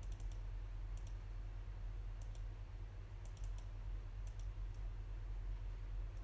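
Computer mouse button clicks, mostly in quick pairs, about five times over the first four and a half seconds, over a steady low hum.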